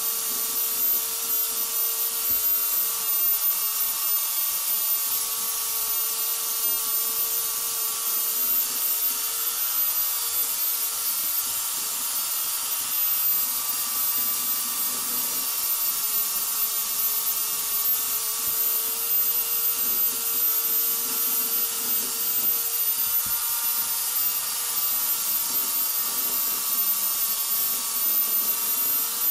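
Chicago Electric finger sander (a narrow-belt electric file) running steadily while its sanding belt works a small wooden carving. It makes a constant high motor whine over a continuous hiss.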